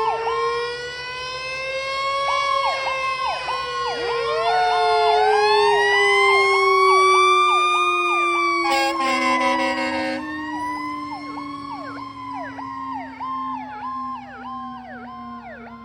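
Fire engine sirens: a slow wail that rises and then falls, overlaid with a fast repeating yelp. A horn blast of about a second and a half sounds past the middle, and the sirens grow fainter toward the end.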